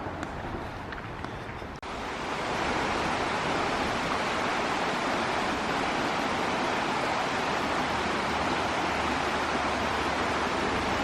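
Steady rush of water, an even noise with no rhythm. It starts abruptly about two seconds in, after a quieter stretch with faint ticks.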